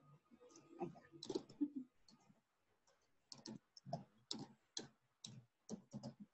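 Faint, irregular clicking and tapping, about a dozen short clicks spread over several seconds.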